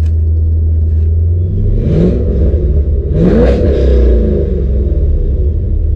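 1997 Corvette's LS1 V8 idling, then revved twice while parked: a short blip, then a bigger rev up to about 4,000 rpm that falls back toward idle. Heard from inside the cabin.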